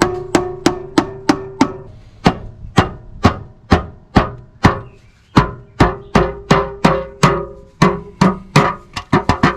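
A steady series of hammer blows, about two to three a second, on the rusty steel oil pan of a 1997 Toyota Starlet, each with a brief metallic ring. The blows are knocking the stuck pan loose from its gasket seal on the engine.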